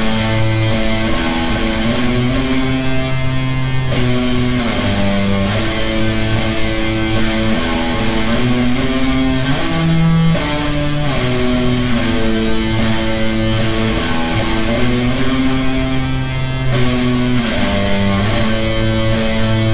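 Doom metal with old-school black metal leanings: distorted electric guitars and bass play slow, held chords that change every second or two, with no vocals.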